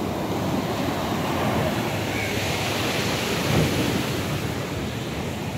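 Sea surf washing up a sandy beach: a steady rush of breaking water that swells and peaks about three and a half seconds in.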